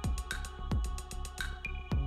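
Electronic background music with a steady beat of kick drums and sharp percussion over held synth tones.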